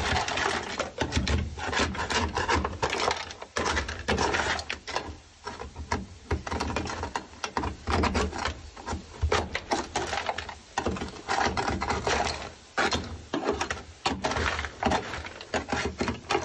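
Irregular scraping and knocking on a car's sheet-metal floor pan as sound-deadening mat, made brittle by dry ice, is pried and chipped off.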